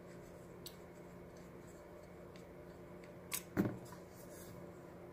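Two small, sharp metallic clicks about three and a half seconds in, a quarter second apart, over a faint steady hum: an Allen key clicking against metal as the set screw of an AR-15 bolt-on magazine cam lock is tightened.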